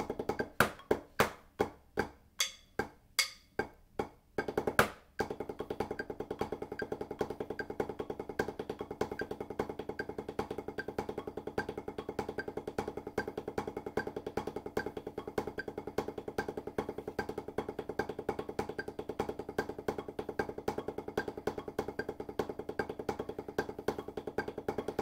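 Wooden drumsticks on a drum practice pad playing paradiddle rudiments: for about the first five seconds, loud accented strokes roughly twice a second with quieter taps between, then a fast, even stream of strokes.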